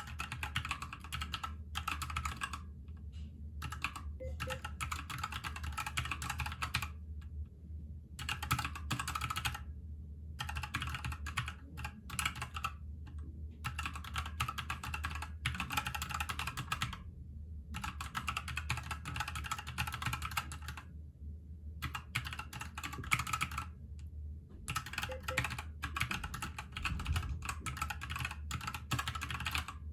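Fast typing on a Keychron K2 mechanical keyboard, in runs of clicking a few seconds long broken by short pauses.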